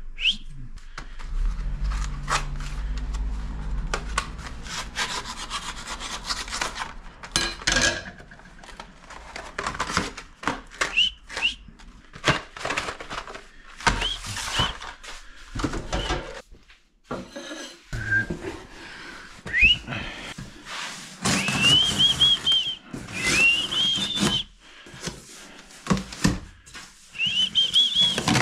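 Cardboard and plastic packaging being handled, rubbed and torn open, with scraping, knocks and several short high squeaks.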